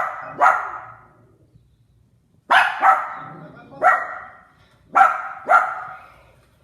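A dog barking: about seven sharp barks in short bursts, mostly in pairs, each trailing off quickly.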